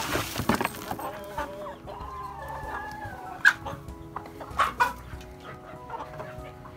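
Chickens clucking and calling around the feeder. A few sharp knocks come from a plastic scoop of layer crumbles and cracked corn being tipped into the feeder, the loudest about halfway through.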